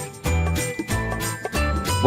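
Background music with a steady, pulsing bass beat and high ringing tones.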